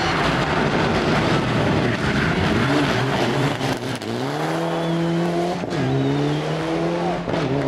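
Rally car, a Mitsubishi Lancer Evolution, sliding through a corner at speed. A dense rushing noise comes first; about four seconds in, the engine note climbs and holds at high revs, with two brief dips in pitch near the end.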